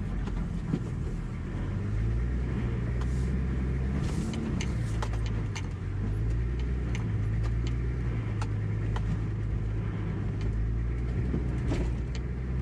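A 4x4's engine running at low revs while crawling up over rocks, the pitch easing and picking up a few times. Scattered short knocks and clicks come from the tyres and underbody on the rock.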